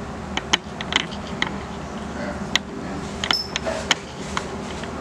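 Scattered sharp clicks and light taps of small mounting hardware being handled, over a steady low hum.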